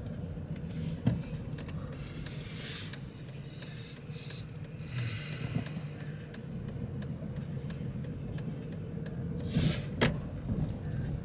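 Steady low rumble of a car driving, heard from inside the cabin, with scattered light clicks and a few short louder rushes of noise.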